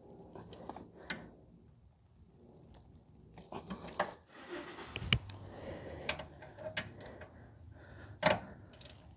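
Scattered, irregular metal clicks and knocks of hand tools and brake parts being handled during work on a rear brake caliper, with a dull thump about five seconds in and a sharper knock near the end.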